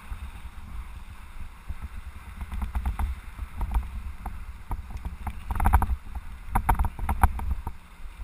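Mountain bike rolling down a bumpy dirt trail, recorded by a camera on the bike or rider: a steady low wind rumble on the microphone, with bursts of rattling knocks from the bike over bumps, loudest twice in the second half.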